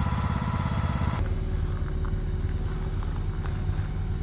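The engine of the building mover's vehicle running steadily as it slowly tows a wheeled shelter. The sound changes abruptly about a second in, and faint light clicks follow.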